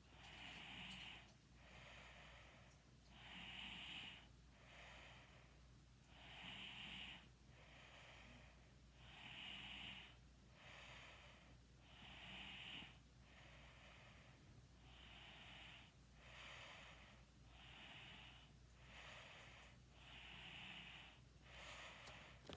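A sleeping person snoring faintly and breathing steadily: a stronger breathy snore and a weaker one alternate, about one full breath every three seconds.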